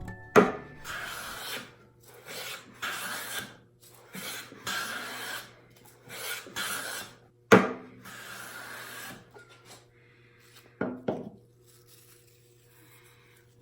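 Stanley No. 3 smoothing plane taking about five planing strokes along a wooden board, each pass lasting roughly a second. There are sharp knocks at the start of the first pass and of the last, and a quick double knock about eleven seconds in.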